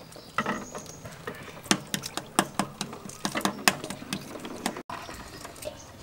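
Shells of hard-boiled duck eggs being cracked and peeled by hand: an irregular run of sharp crackles and ticks of breaking shell, which stops about five seconds in.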